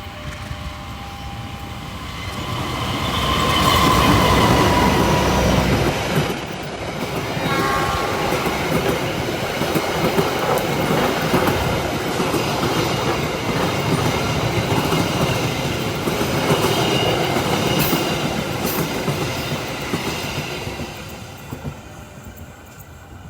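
A train passing close by. Its horn sounds as it comes up, dropping in pitch as it goes past. Then the steady rumble and clatter of wheels on the rails runs for about fifteen seconds and fades out near the end.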